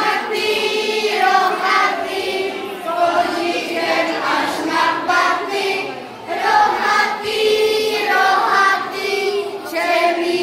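A group of children and women singing a song together.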